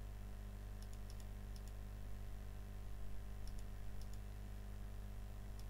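Faint computer mouse clicks, several in quick pairs, over a steady low electrical hum from the recording setup.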